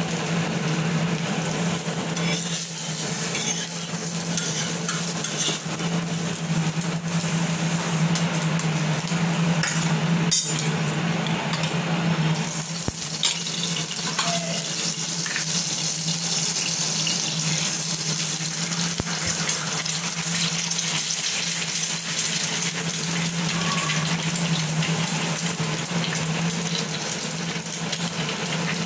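Eggs frying in hot oil on a flat iron tawa: a steady sizzle, with a steady low hum underneath and a single sharp click about ten seconds in.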